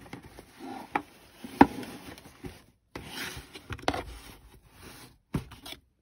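Canvas shoe dust bag and cardboard shoebox being handled while unpacking: rustling and scraping of cloth against cardboard, with a few sharp knocks, the loudest about a second and a half in.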